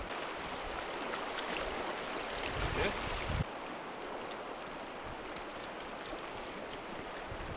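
Creek water flowing and rippling steadily around a fallen log. A brief low rumble comes in near the three-second mark and cuts off suddenly.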